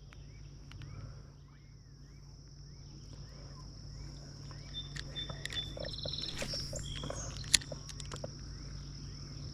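Outdoor ambience with insects trilling steadily and small repeated chirps, a few short bird calls in the middle, and a low steady hum underneath. A single sharp click comes about seven and a half seconds in.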